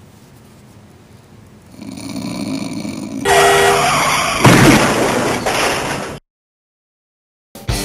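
Logo sound-effect sting: a swelling noise builds into a loud horn-like blast and a crash, then cuts off suddenly into silence. Rock guitar music starts near the end.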